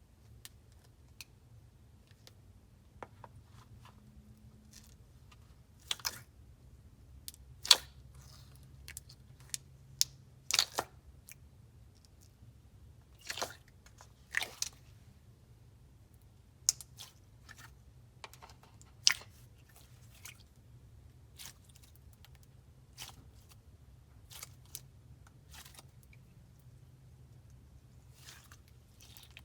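Clear slime being squished, stretched and folded by hand, giving off irregular sticky pops and clicks, a few of them loud.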